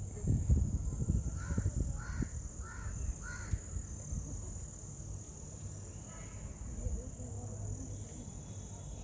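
A crow cawing four times in quick succession, starting about a second and a half in, with a fainter call a few seconds later. Behind it, insects chirr steadily in a thin high drone.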